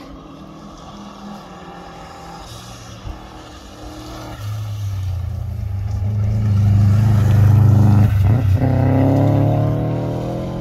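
Rally car engine approaching at speed, growing loud. About eight seconds in it briefly lifts off, then climbs in pitch again as the car accelerates.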